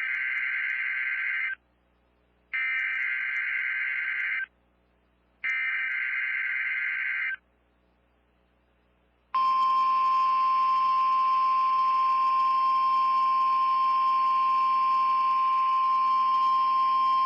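NOAA Weather Radio alert signals: three short bursts of SAME digital header data, a buzzy warbling screech about a second apart. About nine seconds in, the steady 1050 Hz weather radio warning alarm tone begins and holds.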